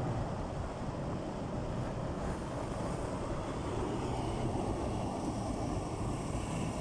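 Muddy flash-flood torrent rushing down a mountain valley channel, a steady deep rushing noise.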